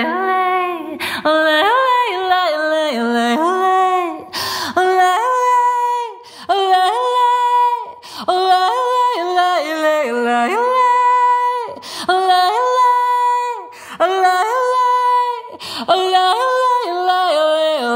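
A woman singing unaccompanied in wordless, invented syllables (singing in tongues), in short melodic phrases of about two seconds with gliding and held notes. Quick breaths fall between the phrases, one clearly audible inhale about four seconds in.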